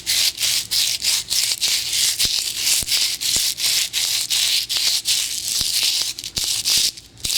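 Sandpaper scratching against a dry, unfired clay pot as it is turned against the hand-held paper: quick rhythmic strokes, about three a second, with a short break near the end.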